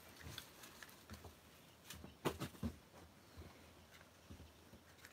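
A few light knocks and taps of objects being handled and set down on a tabletop, with a cluster of sharper ones about two seconds in.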